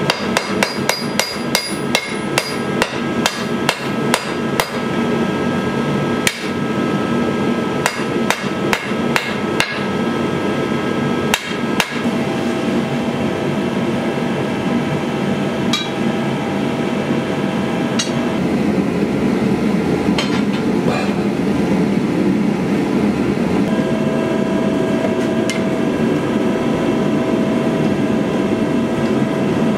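Hand hammer striking a red-hot steel sword blade on an anvil: quick ringing blows, about two to three a second, in several runs over the first dozen seconds. A steady rushing noise, the gas forge running, goes on underneath and is left alone once the hammering stops.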